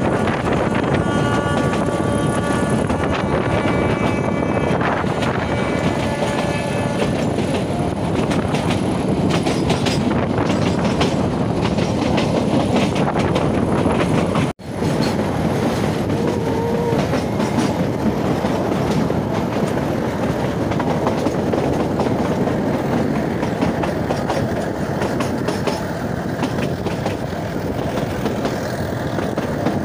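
Narrow-gauge toy train running along the track, a steady rumble with the wheels clattering over the rail joints. A steady horn sounds for the first several seconds, and the sound drops out abruptly for a moment about halfway through.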